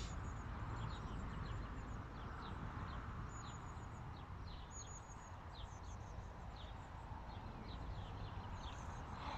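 Small birds chirping and singing: many short high chirps and a few quick trills, over a low steady rumble.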